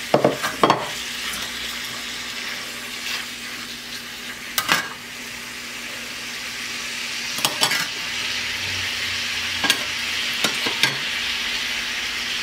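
Chicken pieces and vegetables sizzling in hot oil in a wok, with a handful of sharp metal clinks as tongs knock against the pan.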